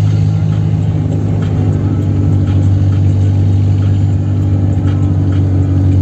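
Chevrolet Kadett 1.8 inline-four engine pulling at high, nearly steady revs, a loud, even drone whose pitch creeps up slightly and then holds.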